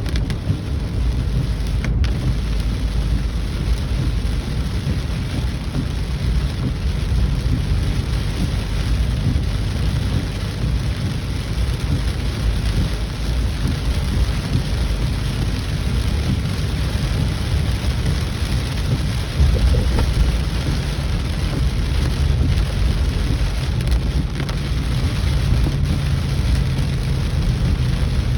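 Heavy rain pouring down in a steady hiss, with a constant low rumble underneath.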